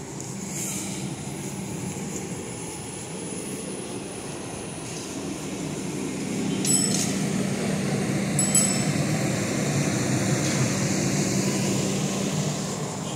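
City street background noise with a steady low hum, and two short metallic clinks about 7 and 8½ seconds in.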